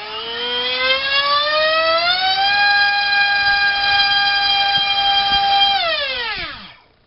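Multistar Viking 1808 2600 kV brushless outrunner motor spinning a DALprop 5045 two-blade prop on 3S at about 800 g of thrust. Its whine rises as the throttle comes up, holds steady at full throttle for about three seconds, then falls away as the throttle is cut, winding down to a stop near the end.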